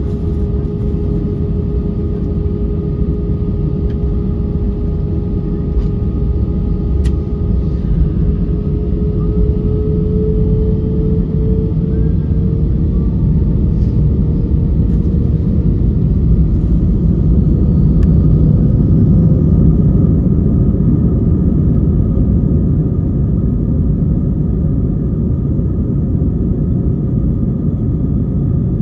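Airbus A320 cabin noise while taxiing: a steady low rumble with a steady engine whine, the whine drifting slightly up in pitch about halfway through.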